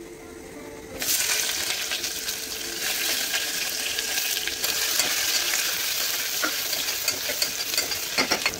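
Sliced onions dropped into hot oil in a pressure cooker about a second in, setting off a sudden steady sizzle that carries on as they are stirred with a spatula, with light clicks of the spatula against the pot.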